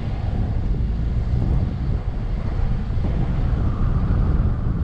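Mazda CX-9 SUV driving over soft desert sand: a steady low rumble of engine and tyres, with some wind noise.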